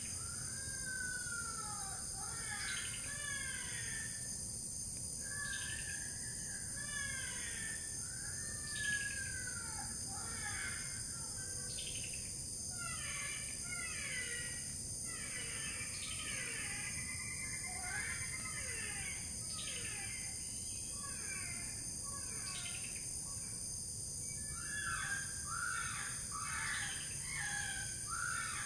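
Repeated harsh, crow-like cries, each sweeping down in pitch, coming every second or two and crowding closer together near the end, over a steady high-pitched drone of insects.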